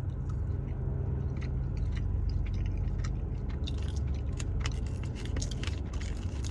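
A plastic snack wrapper crinkling in quick crackly bursts as it is handled and opened, busiest in the second half, over a steady low rumble.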